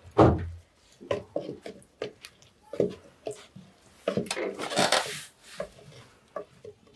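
A wooden cooking stick knocking and scraping against a cooking pot as thick mashed beans are stirred and pressed, in irregular strokes. There is a loud thump just after the start and a longer scrape midway.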